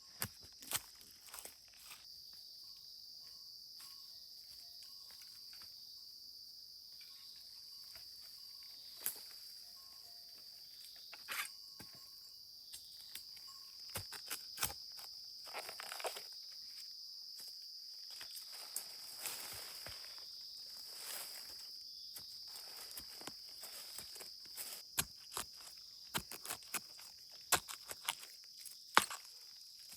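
A steady, high-pitched chorus of night insects, likely crickets, with many sharp clicks and knocks scattered through it; the loudest knock comes near the end.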